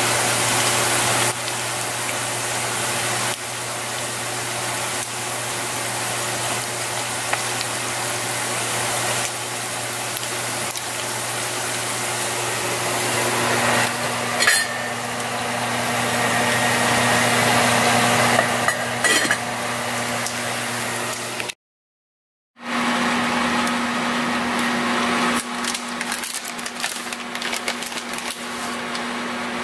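A machine running steadily, a hum with a rushing noise over it. Its pitch shifts a little about halfway through, and it cuts off for about a second near the end before running on.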